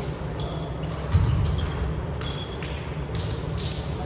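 Gym-floor game sounds: shoes squeaking in short high chirps and several sharp ball hits and knocks, echoing in a large hall over a steady low hum.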